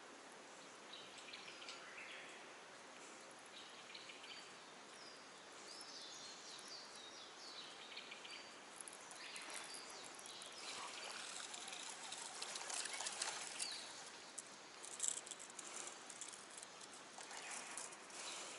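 Faint outdoor background with scattered bird and insect chirps. From about halfway in come light water splashing and gurgling as a propeller topwater bass lure is reeled back across the surface.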